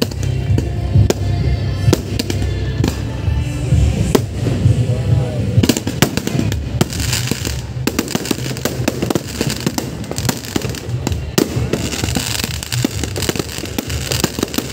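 Fireworks display: aerial shells bursting in rapid bangs that come thicker after about six seconds, with crackling from the bursting stars. Loud bass-heavy music plays underneath, strongest in the first few seconds.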